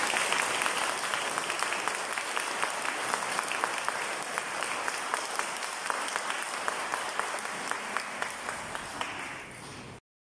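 Audience applauding. The clapping thins out and grows quieter toward the end, then cuts off abruptly.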